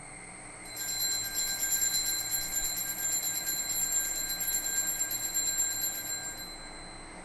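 Altar bell ringing rapidly and continuously, signalling the elevation of the consecrated host. It starts about a second in and dies away shortly before the end.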